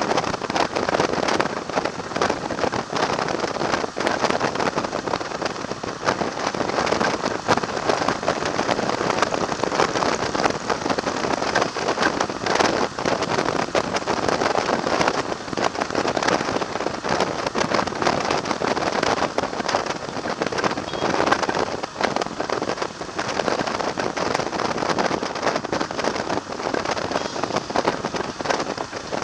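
Wind rushing over the microphone of a camera mounted on a moving motorcycle at road speed, heard as a steady, crackling rush of noise that covers any engine sound.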